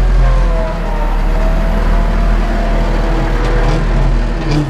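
Ursus 914 tractor's diesel engine running steadily, heard from inside the cab, with a faint whine that drifts a little in pitch.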